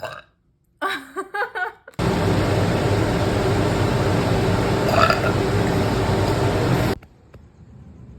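A person belching: a few short burps, then one long, loud burp lasting about five seconds that cuts off suddenly.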